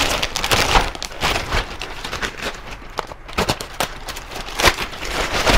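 Clear plastic packaging bag crinkling and rustling in the hands as a wagon wheel is pulled out of its wrapping: irregular crackles with a few louder rustles.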